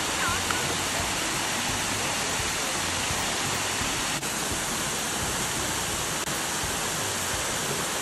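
Steady rushing of a waterfall pouring over rock into a pool.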